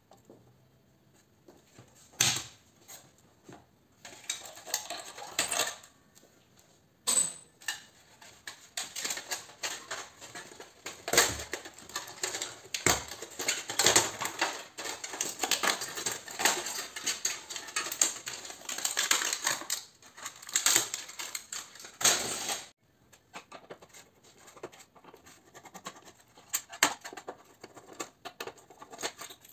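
Thin hammered-aluminium floodlight reflector being pulled and crumpled out of its metal housing: a long, dense run of crinkling and metallic rattling that cuts off suddenly, followed by lighter clicks of a hand tool working inside the housing.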